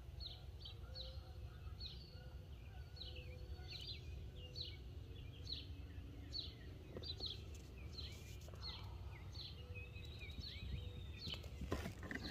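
Birds chirping faintly outdoors: a string of short high notes, each dropping in pitch, repeating about twice a second over a low steady background rumble.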